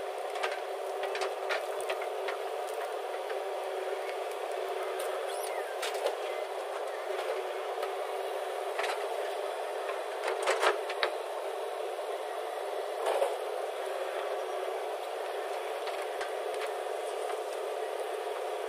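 Diesel engine of heavy construction machinery running steadily, with a few sharp knocks standing out over it, the loudest a short cluster about ten and a half seconds in.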